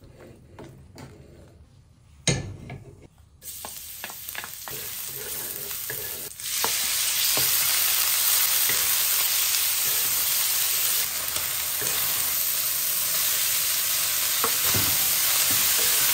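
Chopped chicken sizzling in oil as it is stir-fried in a wok, with a wooden spatula knocking against the pan. The first seconds hold only light clicks and one loud knock; the sizzle starts about three seconds in and gets louder about six seconds in, then stays steady.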